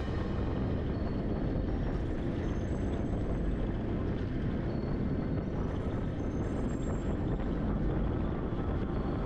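Steady wind and road noise from riding a Honda Air Blade motor scooter: wind rushing and buffeting over the action camera's microphone, with the engine and tyre noise underneath.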